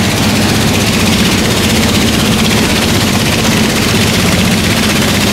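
Boat engine running steadily under way, loud and unchanging.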